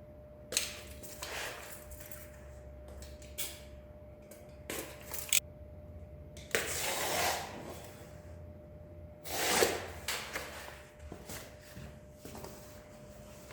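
Workshop handling noises: a string of separate knocks and short scraping or rustling sounds of wood and booth parts being moved and set in place, the loudest a scrape-and-knock about two-thirds through. A faint steady hum runs underneath.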